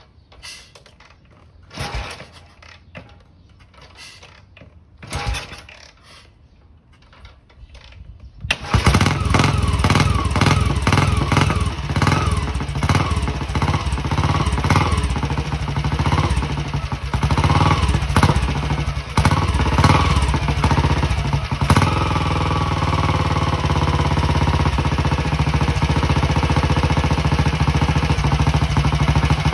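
Cold start of a custom 611cc BSA Gold Star single-cylinder motorcycle engine: it is kicked over with loud knocks that fail to fire, then catches about eight and a half seconds in. It is blipped up and down repeatedly for a dozen seconds, then settles into steady running.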